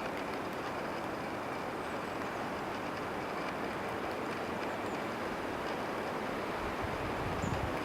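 Steady rushing outdoor noise with a couple of faint, short high chirps. Near the end, wind starts buffeting the microphone with a low rumble.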